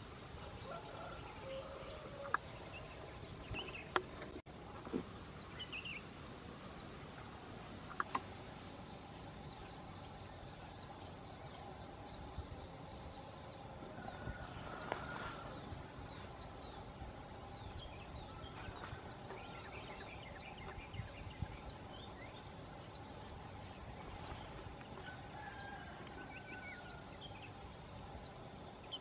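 Faint rural outdoor ambience: a steady high insect drone with scattered short bird calls, and a few sharp clicks in the first several seconds.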